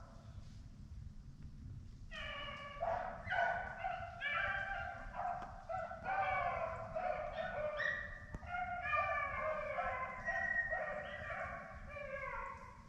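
A pack of rabbit hounds baying in chorus while running a rabbit: many overlapping drawn-out voices. It starts about two seconds in and eases off near the end.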